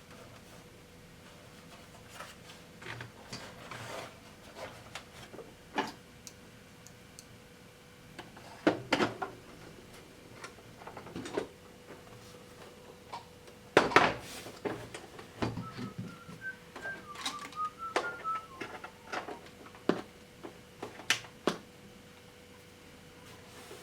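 Scattered clicks and knocks of a plastic electronic keyboard, a Casio SA-75, being handled during repair, loudest about a third of the way in and again just past the middle. A faint steady hum runs underneath, and a brief run of faint high tones comes just after the middle.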